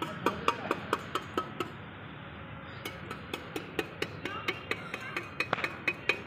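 A small metal hand trowel chopping into hard-packed dirt, digging a small hole. The blade strikes the ground about four times a second with a slight metallic ring. The strikes pause for about a second, then start again.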